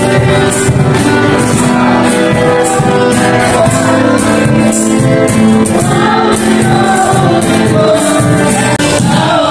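A group of voices singing an upbeat song together over a steady percussive beat.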